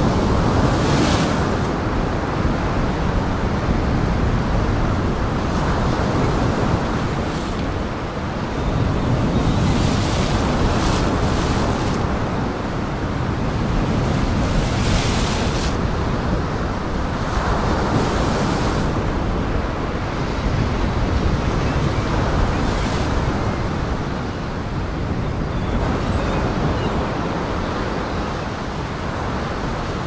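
Heavy storm surf on Lake Michigan with wind: big waves breaking and crashing against a pier, swelling and easing every few seconds, with several sharper splashing crashes.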